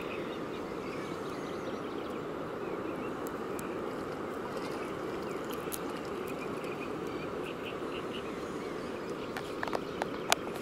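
Steady outdoor riverside background noise with faint scattered chirps, and a few sharp handling clicks near the end.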